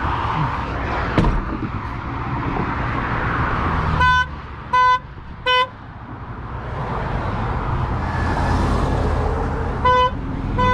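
Traffic passing on the highway, swelling and fading twice. Loud, short electronic beeps of one pitch come in sets of three about 0.7 s apart, once in the middle and again near the end.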